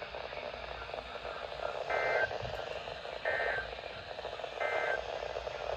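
Three short identical bursts of warbling SAME digital data tones from a NOAA Weather Radio broadcast, about a second and a half apart, heard through a radio receiver over steady static hiss. They are the end-of-message code closing the Required Weekly Test.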